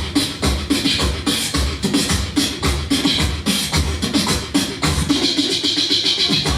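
Beatboxing: a steady beat of mouth-made kick drums about twice a second, with sharp snare and hi-hat sounds between them.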